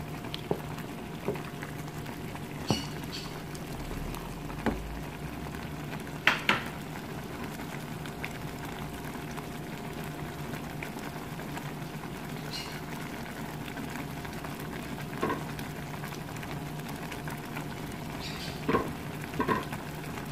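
Thick creamy chicken sauce simmering in a pan on a gas stove, bubbling softly over a steady low hum, with a few scattered pops and ticks.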